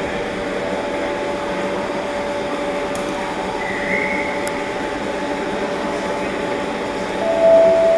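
Steady mechanical hum and rushing noise of an underground railway platform, with a faint steady whine throughout. A short, louder tone sounds near the end.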